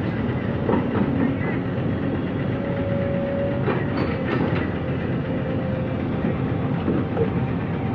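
Jonyang JY623E excavator at work: its diesel engine runs steadily, and a steady whine runs through the middle. Clanks and knocks come about a second in and again around four seconds in.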